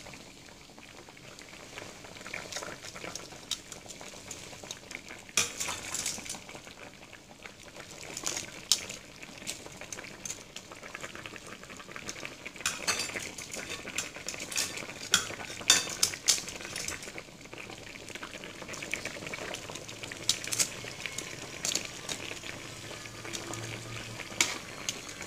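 Tongs clacking against a pan as they move pieces of tilapia around in a simmering sauce, with sharp irregular clicks over a steady low bubbling.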